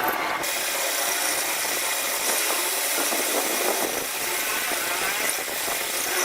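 A power tool running steadily.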